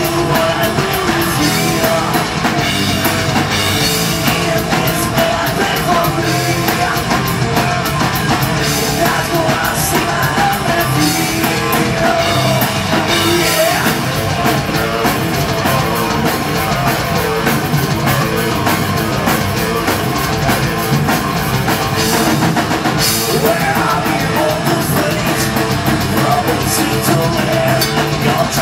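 Heavy metal band playing live: distorted electric guitars, bass and drum kit, loud and unbroken.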